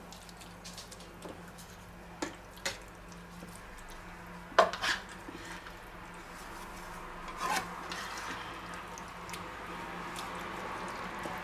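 A ladle scooping and spreading a chunky mince, bean and corn filling, knocking a few times against the skillet and a metal springform pan, the loudest knock about four and a half seconds in, then a soft, steady scraping and rubbing as the filling is spread. A faint low hum runs underneath.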